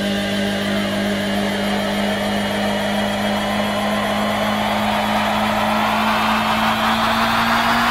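A sustained drone on one low pitch with a rushing, whooshing noise swelling over it and growing brighter towards the end, forming the outro of a psychedelic rock track after the band has stopped playing.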